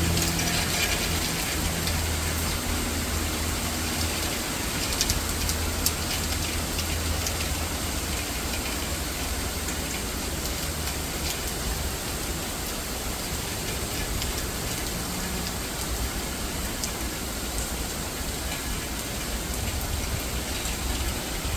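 Heavy rain falling steadily, an even hiss of drops. A low hum under it fades out over the first few seconds.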